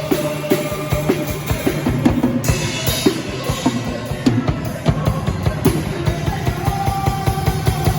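A band playing live in rehearsal without singing, a drum kit to the fore with fast, busy bass drum and snare strokes over steady held notes from the other instruments.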